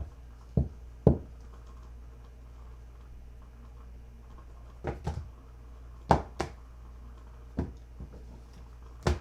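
Tarot cards being laid or tapped down on a table: a series of short, sharp taps at irregular intervals, with a pause of a few seconds between the first few and the rest.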